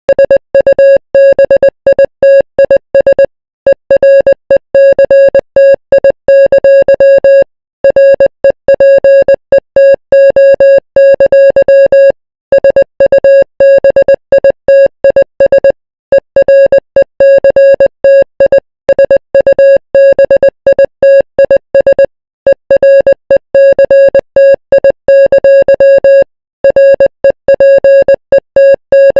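Emergency Alert System alarm tone: a single harsh electronic tone beeping in rapid, uneven pulses, broken by short pauses every four to five seconds.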